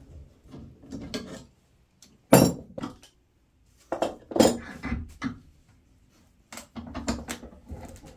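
Steel F-clamps being unscrewed, lifted off and laid down on a wooden workbench: several bouts of metallic clanks and knocks, the loudest about two seconds in.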